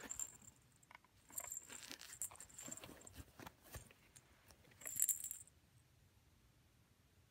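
Light crinkling and high jingling in short bursts as a shiny foil fish-shaped cat toy is handled and nosed by a cat, the loudest burst about five seconds in.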